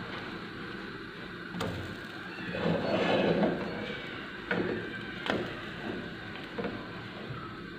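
Pancakes frying in oil in a nonstick pan with a steady sizzle, while a silicone spatula scrapes under them and turns them over. Several light taps of the spatula against the pan come through, with a longer scrape about three seconds in.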